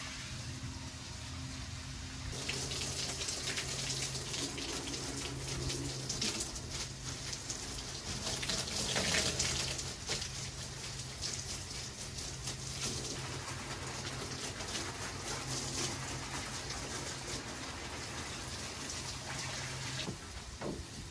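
Garden hose spraying water onto potted plants and a wooden deck, a steady hiss that starts about two seconds in and swells around the middle. A steady low hum runs underneath and stops near the end.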